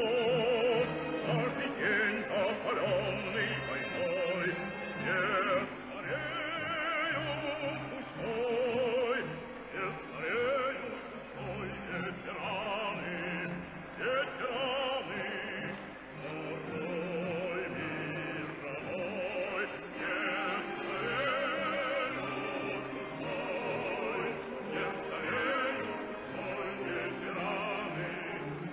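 Music with operatic-style singing, the voice carrying a wide vibrato over an instrumental accompaniment.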